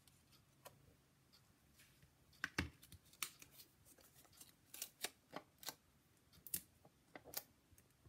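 Faint desk-handling noises of paper and cardstock: a scatter of short, light clicks and taps that starts about two and a half seconds in.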